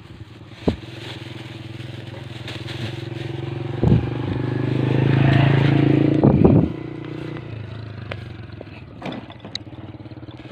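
A motor vehicle's engine running steadily, growing louder toward the middle and dropping off suddenly about two-thirds of the way through, with a few sharp knocks close by.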